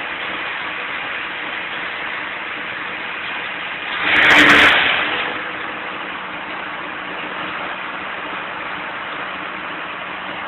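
Tractor engine running steadily under load while chopping clover for silage, with an even mechanical hum. About four seconds in there is a brief louder surge lasting under a second, then it settles back to the same steady level.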